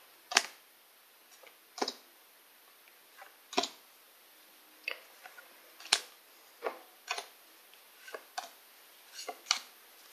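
Pokémon trading cards being moved one by one from the front of a hand-held stack to the back, each card giving a short, crisp snap as it slides off and slaps against the others, roughly once a second at an uneven pace.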